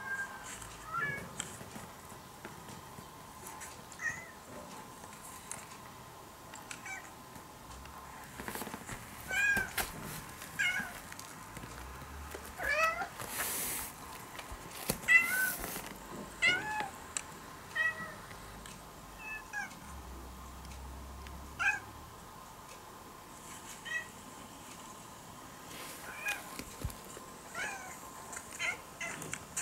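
Recorded cat meows playing through headphones held next to a cat: many short meows spaced irregularly, some in quick runs of two or three. Two short noisy bursts come about halfway through.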